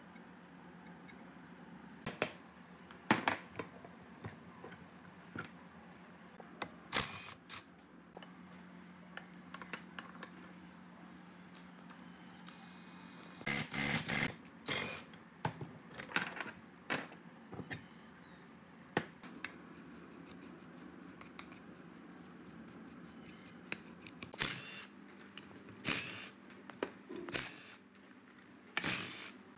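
Scattered metallic clicks, clinks and knocks of hand tools and parts as a rusty belt pulley is worked off an air compressor pump's crankshaft with a three-jaw gear puller. The clatter is densest about halfway through.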